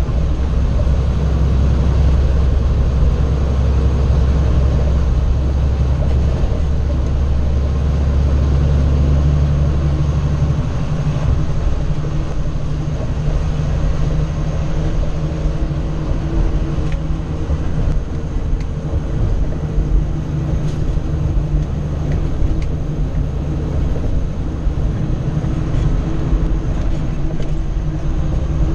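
In-cab sound of a 2012 Kenworth W900L truck driving at highway speed: the 600 hp Cummins ISX diesel engine drones steadily under tyre and road noise. The low engine drone eases off about a third of the way through.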